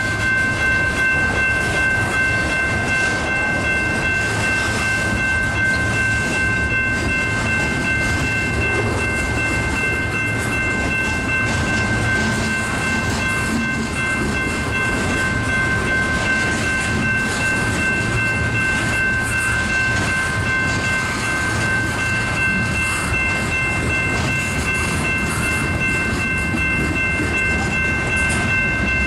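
Freight train of boxcars and tank cars rolling past at close range: a steady rumble and rattle of wheels on rail, with a steady high-pitched tone held throughout.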